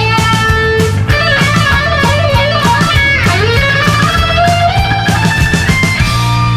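Background music led by electric guitar, with bending lead notes over a steady beat.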